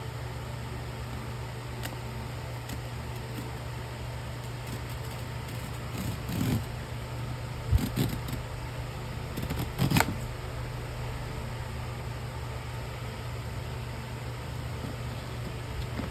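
Steady low hum, with short clicks and rustles of things being handled about six, eight and ten seconds in.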